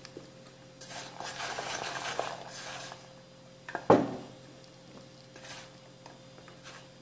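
Fingers scraping and rummaging through floured candied fruit in a small metal bowl, with one sharp metallic clank about four seconds in, and a few lighter scrapes after it.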